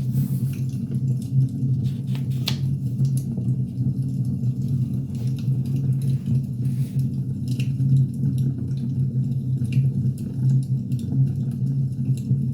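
Firewood burning, with irregular sharp crackles and pops over a steady low rumble.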